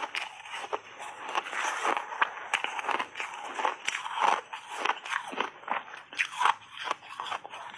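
Shaved ice being chewed close to the microphone: a dense, irregular run of crackling crunches.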